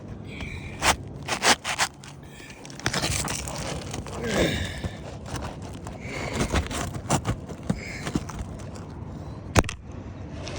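Scraping and handling noise with a few sharp knocks, from work on an asphalt shingle roof.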